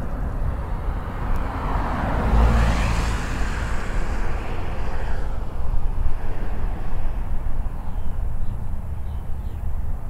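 Road traffic: a vehicle passes by, its noise swelling to its loudest about two to three seconds in and fading away by about five seconds, over a steady low rumble.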